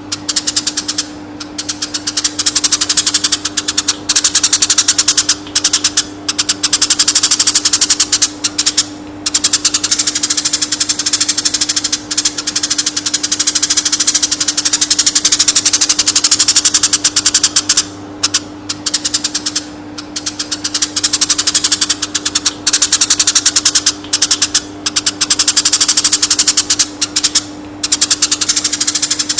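Eurasian tree sparrow chirping in a fast, dense run of sharp high chirps, broken by a few brief pauses, over a steady low hum.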